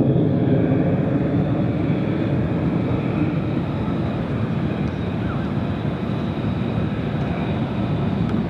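Jet engine of an F-35A Lightning II (a single Pratt & Whitney F135 afterburning turbofan) roaring steadily as the fighter flies its display overhead, the sound heavy in the low range.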